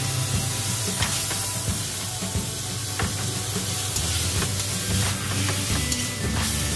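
Marinated sliced beef sizzling as it goes into a hot wok and is stir-fried, with sharp clicks of the spatula against the pan. Background music runs underneath.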